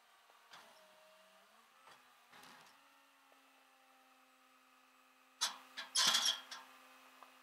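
Steady low hum of a rollback tow truck running with its bed tilted. About five and a half seconds in comes a short cluster of loud, sharp clanks and rattles close by.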